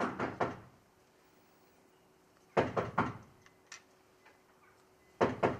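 Knocking on a door: three bouts of a few sharp knocks each, about two and a half seconds apart.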